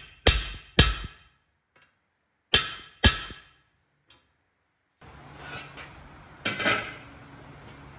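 Hammer blows on a steel rivet set over an anvil, heading a rivet in a flat steel bar. There are two ringing strikes about half a second apart, a pause, then two more, each fading out. A few seconds later comes a single metal clank as a steel plow-disc wok is set down on its trivet stand.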